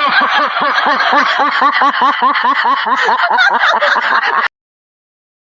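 A person laughing in a rapid, even string of repeated syllables, each rising and falling in pitch, about four a second, cut off abruptly after about four and a half seconds.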